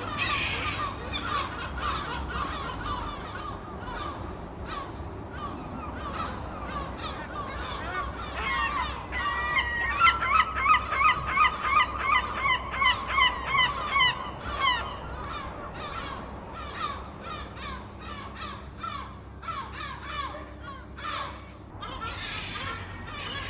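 Gulls squawking, many calls overlapping. About ten seconds in, one gull gives a loud run of rapid calls, two or three a second, for about five seconds.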